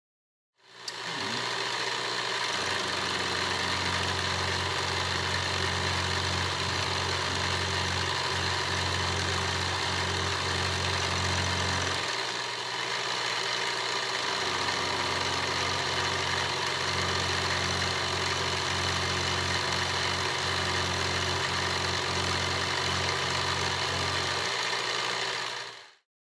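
Benchtop milling machine running, its spindle motor humming steadily while an end mill cuts the mounting boss of a cast boiler feed pump body. The low hum drops out for a couple of seconds about halfway through, then returns.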